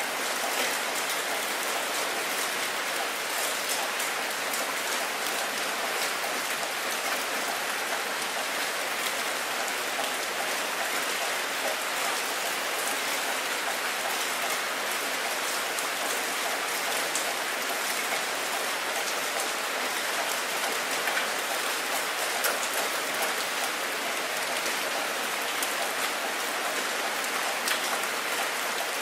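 Steady rain falling onto open water: a continuous even hiss of drops, with many small sharp drop ticks scattered through it.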